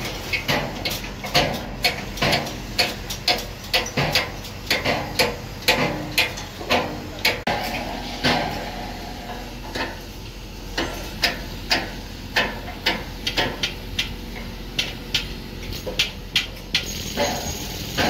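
Metal-on-metal hammering and clanking on steel scaffold tubes and fittings: a quick, uneven run of sharp knocks, about two or three a second, some of them ringing briefly.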